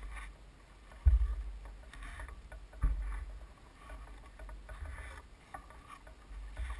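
Wind buffeting a handlebar-mounted camera's microphone, a low rumble, with two sharp thumps about one and three seconds in.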